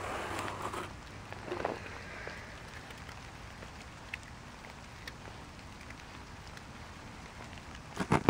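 Steady outdoor hiss in falling snow, with a jacket rustling in the first couple of seconds and a few faint scattered ticks. Near the end there are a few loud clunks as the camera is picked up and handled.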